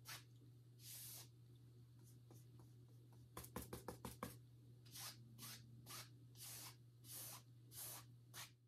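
Faint swishes of a stiff bristle painter's brush stroked across an oil-painted canvas, with a quick run of sharp taps about three and a half seconds in as the brush is loaded on the palette. A low steady hum runs underneath.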